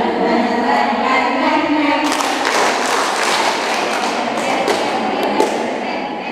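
A room of people singing together, then about two seconds in breaking into dense hand-clapping with voices mixed in.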